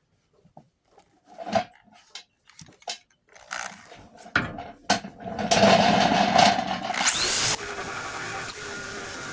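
Scattered knocks and clicks of tools and parts being handled, then a power tool running loudly for about two seconds, its whine rising steeply before it cuts off sharply, leaving a quieter steady hum.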